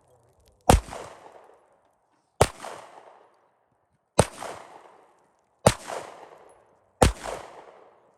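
Rifle fired five times in slow succession, about one and a half seconds between shots, each crack followed by a rolling echo that dies away over about a second.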